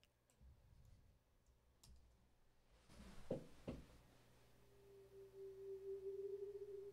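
Contrabass sample resynthesized through an FFT bin filter in SuperCollider and slowed to a twentieth of its speed. After a few faint clicks come two short, low swooping strokes about three seconds in, then a steady pure tone that fades in and slowly swells.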